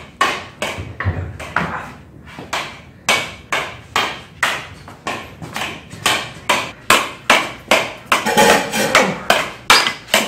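Sticks clacking against each other in a mock stick fight: a fast, irregular run of sharp hits, about two to four a second, with short pauses between flurries.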